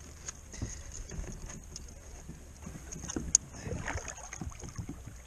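Water lapping against a kayak hull, with small knocks and rustles of gear being handled on board; one sharp click a little over three seconds in is the loudest sound.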